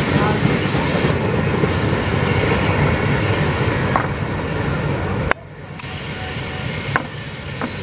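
A passing train's rail cars rolling by on the track, a dense rumble of wheels on rail with a few sharp clicks. It cuts off abruptly about five seconds in, and a much quieter background follows.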